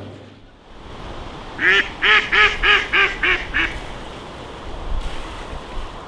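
A duck quacking about seven times in quick succession, the quacks growing slightly fainter toward the end.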